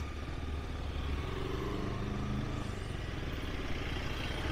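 Motorcycle engine running at low speed in slow traffic: a steady low hum whose pitch shifts a little, over road and wind noise.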